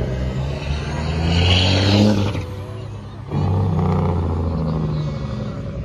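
Diesel semi truck engine accelerating hard, rising in pitch and loudest about two seconds in, with a hiss over it. It drops off suddenly just after three seconds, as in a gear change, then pulls again. A spectator takes the run for the truck spinning its tires; it is a pulling truck.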